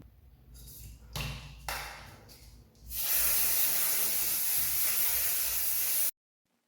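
Aerosol spray can hissing: a few short sprays, then one long continuous spray of about three seconds that cuts off abruptly.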